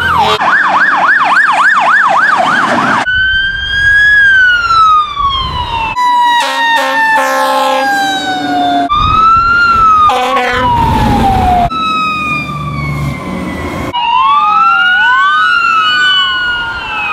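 Emergency-vehicle sirens from fire trucks and an ambulance, changing every few seconds: a fast up-and-down yelp at first, then long wails falling in pitch, with lower steady horn-like tones in the middle. Near the end two sirens wail out of step with each other.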